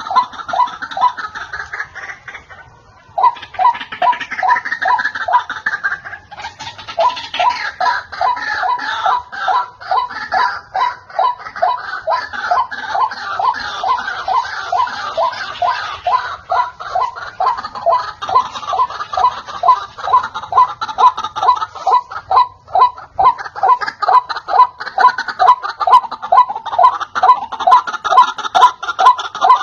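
White-breasted waterhen calling: a fast, even run of short repeated 'ruak' notes, about three a second, with a second, higher series of calls overlapping. The calling dips briefly about two seconds in, then picks up again.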